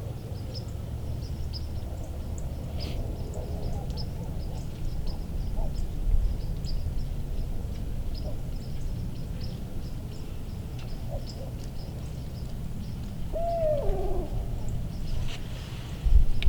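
Outdoor ambience with a steady low rumble and many faint, short high chirps from birds. Near the end comes a single hooting bird call that falls in pitch, and then a loud knock.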